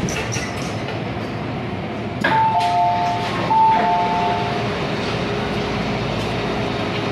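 MTR M-Train saloon doors sliding open at a station stop, with the door chime: a two-note ding-dong sounded twice, over the hum of the stopped train.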